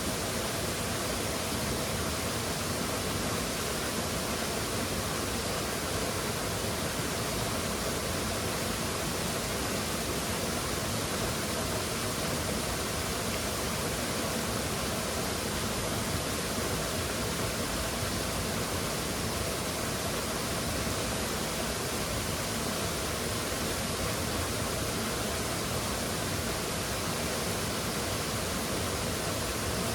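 Waterfall rushing, a steady dense wash of falling water that does not change.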